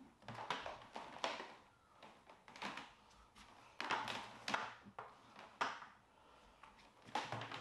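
Handling noise: irregular taps and knocks, about ten in all, as a pressure-washer wand and hose are picked up and moved about.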